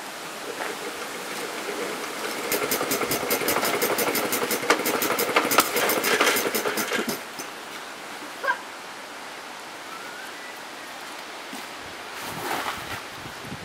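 1920 Briggs & Stratton Flyer's single-cylinder motor-wheel engine being started: it catches and runs with a rapid series of pops for a few seconds, then stops. A single short knock follows a little later.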